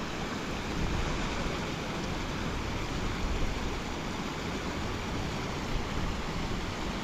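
Steady rushing noise of wind buffeting the microphone, mixed with running muddy runoff water.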